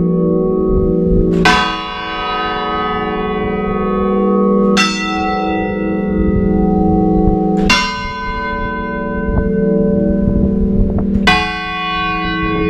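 Bronze church tower bells tolled 'a clamor', the slow Spanish toll for a death: four loud strikes about three seconds apart, each leaving a long humming ring that carries into the next.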